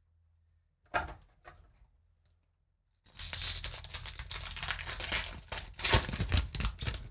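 Foil wrapper of a Magic: The Gathering booster pack being torn open and crinkled by hand, a dense crinkling rustle that starts about three seconds in, after a couple of short rustles about a second in.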